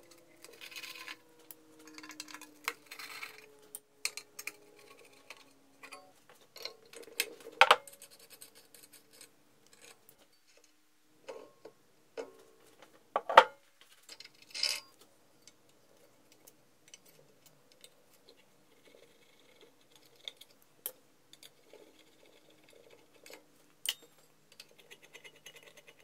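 Bench grinder being taken apart by hand: a screwdriver turning out screws and metal guard parts and fittings clicking, scraping and clinking, with two sharp metal knocks, the loudest about 8 and 13 seconds in.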